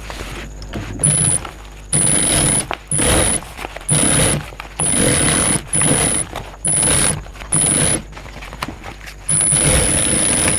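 Primex high-speed industrial sewing machine stitching through bag fabric in about nine short runs, each half a second to a second long, the last one about two seconds. Each run carries a steady high whine and stops sharply between runs as the fabric is repositioned.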